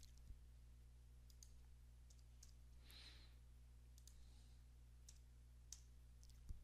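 Near silence over a steady low hum, with a few faint, scattered clicks of a computer keyboard and mouse as numbers are entered into a form.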